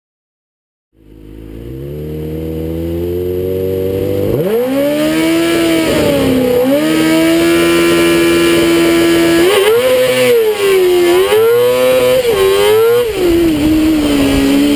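Rally buggy engine heard from on board. It fades in, then is revved up about four seconds in and held at steady high revs on the start line. From about nine seconds the buggy launches and accelerates, the engine note rising and dropping several times as it pulls through the gears.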